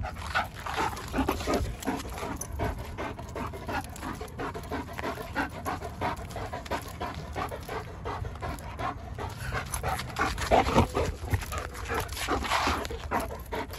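German Shepherd panting rhythmically, short quick breaths out of breath from tug play, a little louder near the end.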